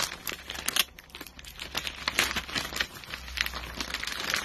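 Paper crinkling and rustling in quick, irregular crackles as a child handles and unwraps a gift.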